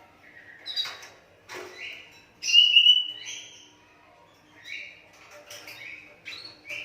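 Asian pied starling (jalak suren) giving a series of short, harsh, chattering calls. The loudest comes about two and a half seconds in.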